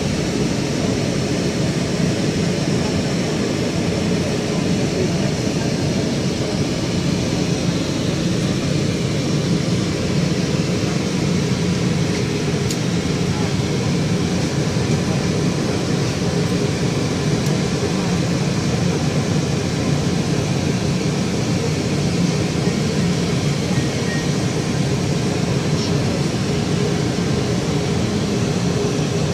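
Steady running noise inside a moving tram, with a constant low hum.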